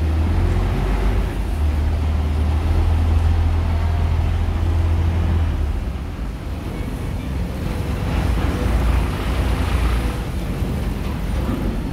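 A river ferry's engine running with a steady low drone, its pitch dropping about halfway through as the boat pulls away from the pier, over a hiss of water.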